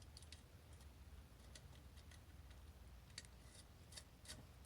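Faint, scattered light clicks of small metal parts as the cylinder head bolts of a 70cc engine are handled and started on their studs by hand, over a low hum.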